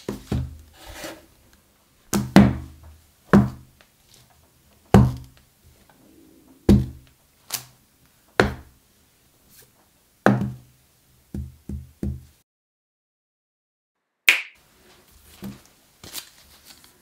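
Cardboard and iPhone retail boxes knocking and thudding as gloved hands handle and set them down: a series of dull thunks about once a second that stops abruptly about twelve seconds in. After a short silence comes one sharp click and faint handling.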